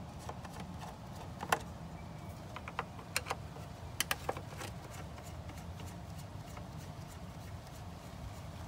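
Hand screwdriver backing out the screws of a pump drive's plastic cover: a scatter of small sharp clicks and ticks, bunched in the middle, over a low steady hum.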